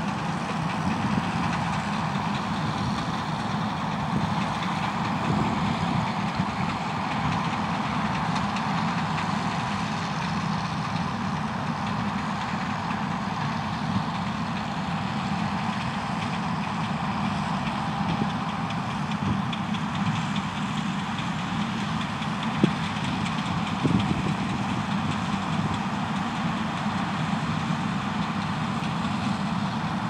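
John Deere C670i combine harvester running steadily while cutting and threshing wheat, a continuous deep mechanical drone with a higher hum over it. Two short knocks stand out about two-thirds of the way through.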